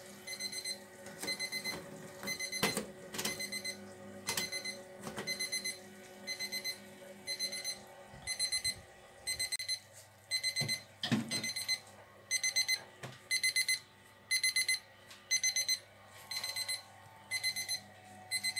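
ThermoPro TP17 digital meat thermometer's alarm beeping over and over in short clusters of rapid beeps: the signal that the pork has reached its set target temperature. A few sharp knocks come in the first few seconds.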